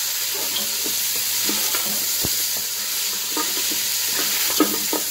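Chunks of boiled beef frying in hot oil with a steady sizzle, stirred in a nonstick pot, with short scrapes and knocks of the spoon against the pot now and then.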